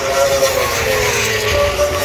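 Racing superbike engines running at high revs on the circuit, their notes sliding slowly down and up in pitch as the bikes pass.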